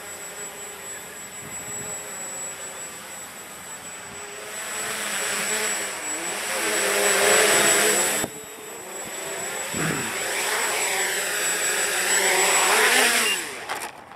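Walkera Hoten-X quadcopter's electric motors and propellers buzzing in flight, growing louder as it comes close overhead. The buzz breaks off sharply about eight seconds in. It returns loud with the pitch rising and falling as the quadcopter comes down onto the grass, then drops away near the end.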